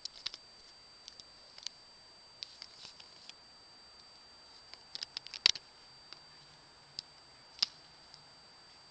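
Light clicks and taps from handling small plastic gear: a few scattered ones, a quick run of them about five seconds in, and single ones near seven and seven and a half seconds. Under them runs a faint, steady high whine.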